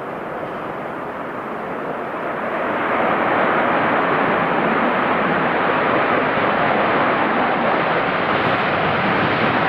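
Boeing 747 freighter's jet engines in reverse thrust on the landing roll, a loud, even roar that swells about two to three seconds in and then holds steady.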